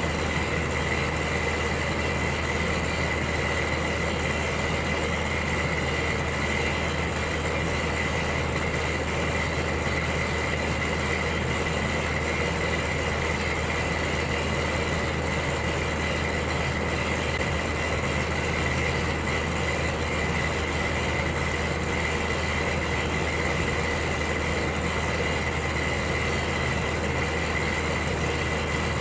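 Electric heater running with a steady, unchanging hum and a thin high whine over an even rushing noise.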